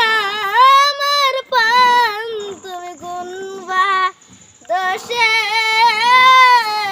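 A child singing a Bengali song, in long phrases with wavering held notes and short pauses for breath.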